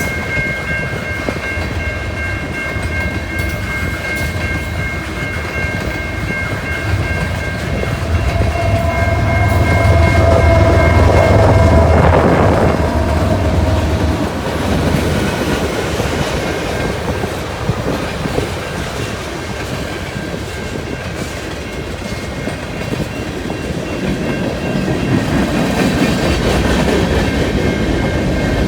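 A CN freight train's cars rolling past, a steady rumble of steel wheels on the rails with clicking over the rail joints. A couple of high, steady ringing tones run through the first half. About a third of the way in the rumble swells louder and deeper, then eases off by the halfway mark.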